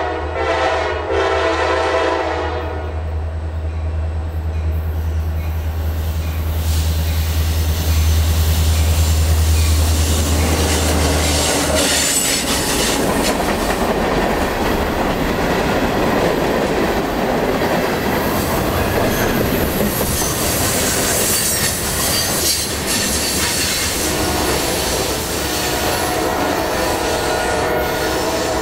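CSX freight train passing close by. The diesel locomotive's horn sounds and stops about two seconds in, and the locomotives' engines drone heavily until about twelve seconds in. After that the open-top freight cars roll past with wheels clacking over the rail joints and some wheel squeal on the curved track.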